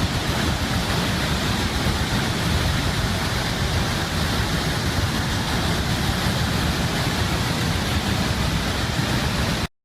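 Steady rushing of a large volume of floodwater pouring through the open spillways of Tarbela Dam, a dense, unbroken roar with heavy low rumble. It cuts off suddenly near the end.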